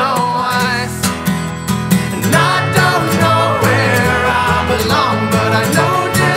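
Background music: a country-style song with acoustic guitar and a singing voice.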